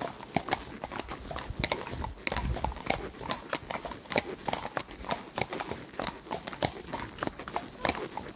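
Horses' hooves clip-clopping on a paved road, several horses in single file giving an uneven run of hoofbeats, several strikes a second.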